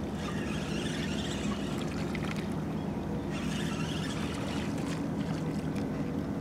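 Steady low hum with a light hiss of wind and water around a small fishing boat, plus a few faint ticks.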